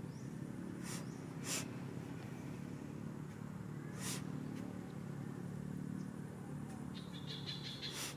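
A steady low engine hum, with four sharp clicks scattered through it and a quick run of high ticks near the end.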